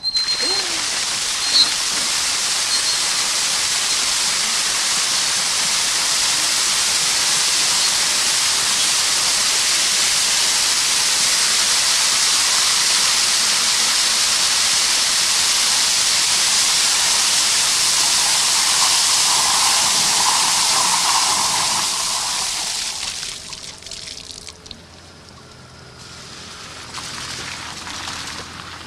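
Water rushing out of an opened underground fire hydrant's standpipe in a loud, steady hiss as the hydrant is flushed, to clear out possibly dirty water and let the air out before the hose is coupled. The flow dies down about 23 seconds in.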